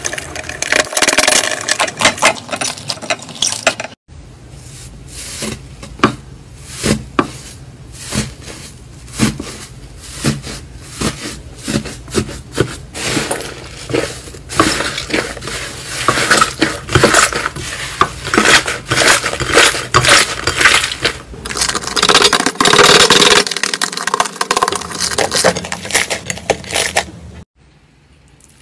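Hands squeezing, folding and kneading slime, making a dense run of crackling and popping clicks with wet squishing. The sound drops away to a much quieter level near the end.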